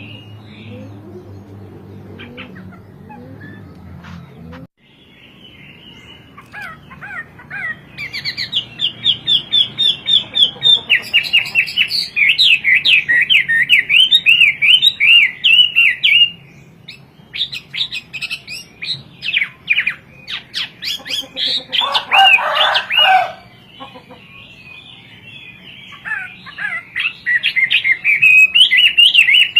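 Chinese hwamei (wambie) songbird singing loud, varied phrases of rapid, looping whistled notes. The phrases come in runs of several seconds with short pauses between them, after a quieter first few seconds.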